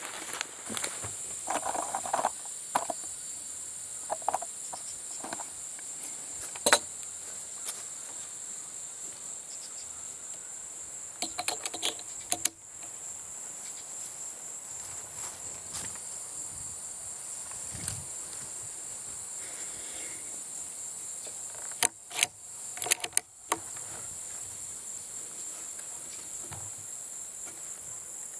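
Crickets chirring steadily in a high-pitched band, with scattered sharp clicks and knocks over it. The loudest knock comes about seven seconds in, and a cluster of clicks falls a little past twenty seconds.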